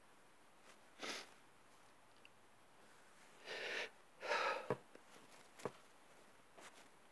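A man's sneeze build-up: a short sniff about a second in, then two breathy, gasping breaths in quick succession a couple of seconds later, followed by a few small clicks.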